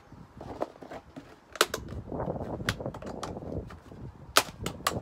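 Seed packets being handled and opened, a rustle of paper crinkling with a string of sharp crackles, the loudest about one and a half seconds and four and a half seconds in.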